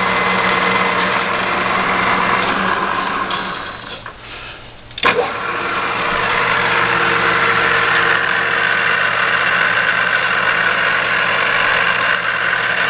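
ENCO 13 x 40 geared-head lathe running with its power cross feed engaged, a steady gear whine. The running sound drops away about four seconds in, a sharp click follows a second later, and the lathe runs steadily again.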